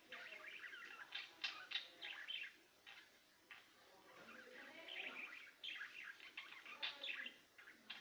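Caged finches chirping and twittering in quick, overlapping runs of short high notes, with a brief lull about three seconds in.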